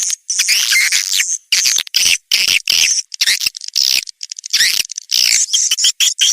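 Swiftlet calls: rapid high chirping and twittering in quick bursts, separated by short silent gaps. This is a swiftlet-call recording of the kind played to draw swiftlets into a nesting house.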